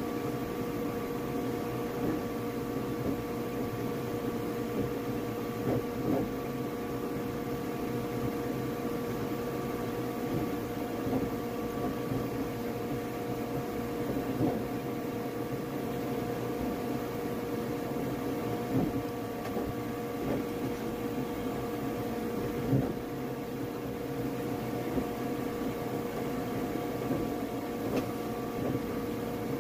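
Flashforge Adventurer 5M Pro 3D printer running mid-print: a steady whirring hum with a few constant tones, from its fans and motors, with small irregular ticks and bumps as the print head moves.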